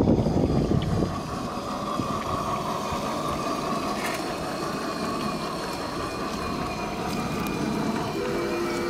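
Battery-powered G-gauge model train running along an outdoor garden track, with a steady faint whine over a noisy background.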